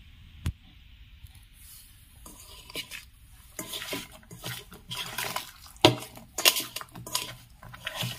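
Salted bitter gourd slices being gathered and squeezed by hand in a stainless steel bowl to draw out their juice: irregular wet handling and dripping, with light knocks that make the steel bowl ring, the sharpest just before the six-second mark.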